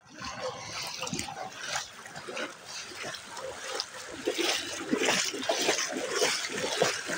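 Floodwater splashing and sloshing in irregular bursts as someone wades through it.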